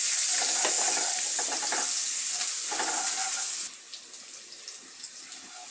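Chopped onion sizzling in hot oil in a non-stick kadai, stirred with a wooden spatula that scrapes the pan. About two-thirds of the way through the sizzle cuts off suddenly, leaving faint stirring.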